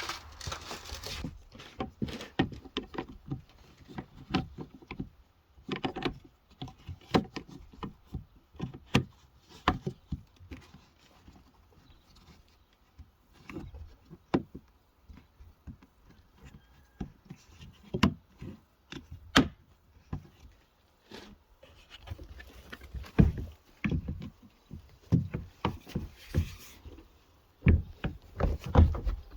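Irregular knocks, clicks and clatter of a plastic Keter shed being put together, as panels and roof parts are handled, fitted and screwed. A few heavier low thumps come near the end.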